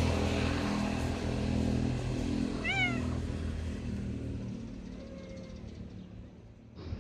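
A street cat gives one short meow, rising then falling in pitch, about three seconds in. Under it runs a low steady rumble that fades away.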